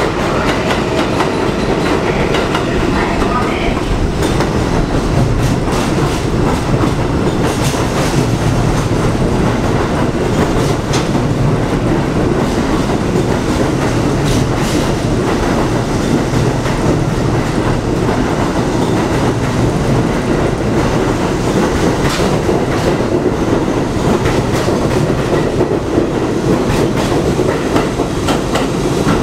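A train of Budd R32 stainless-steel subway cars running past close by: a steady loud rumble of steel wheels on the rails, with irregular sharp clacks as the wheels cross rail joints.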